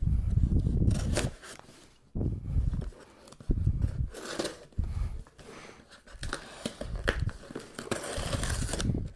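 Cardboard subscription box being opened by hand: tape and cardboard tearing and flaps being handled, in several irregular bursts with dull thumps.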